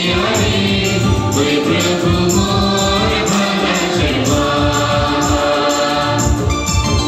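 Dance music: a group of voices singing a song over a steady percussive beat.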